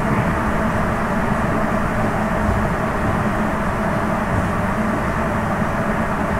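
Interior running noise of a Sapporo Municipal Subway 9000 series rubber-tyred train running steadily through the tunnel between stations, a constant rumble with no change in pitch.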